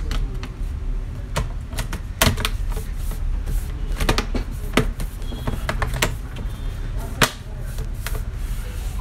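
The snap-in clips of a laptop's bottom cover clicking into place as the cover is pressed down around its edges: a dozen or so sharp, irregular clicks, the loudest about two seconds in and about seven seconds in.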